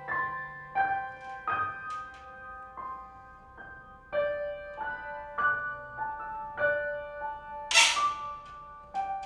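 Horror film score: slow, separate single notes on piano, with one loud crashing hit about eight seconds in.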